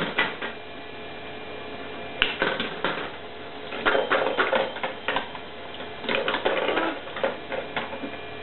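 Plastic balls clattering down the spiral tracks of a Kumon Kuru Kuru Chime toy, in three or four bursts of rapid clicks and rattles.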